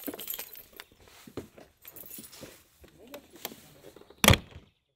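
Small clicks and rattles as someone climbs in through a motorhome's side habitation door, then the door shuts with a sharp bang about four seconds in.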